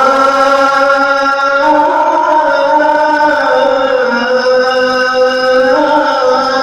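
A muezzin's voice chanting the adhan, the Islamic call to prayer, in one long unbroken phrase. The held note bends slowly up and down in a melodious ornamented line.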